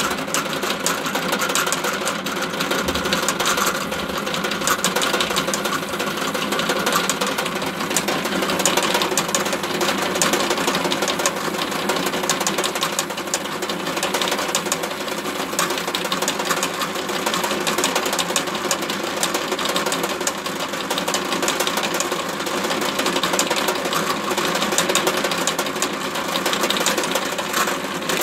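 Benchtop drill press running steadily, its bit drilling the wing-screw hole through a model glider's composite fuselage and the small aluminium plate set into it. The spindle runs slower than ideal for drilling metal.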